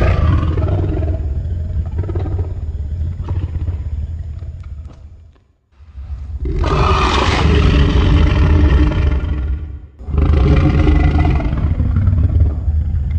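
Monster roar sound effect for the sea serpent Tiamat: three long, loud roars with a deep rumble beneath. The first is already sounding and fades out about five seconds in, the second starts about a second later, and the third follows straight on near the end.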